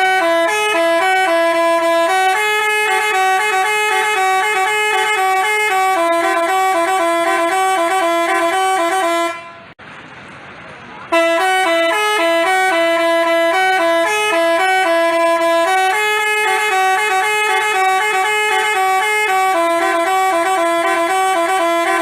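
Indonesian 'telolet basuri' musical bus horn playing a tune of quick stepping notes. It cuts off a little before halfway, pauses for over a second, then starts the same tune again.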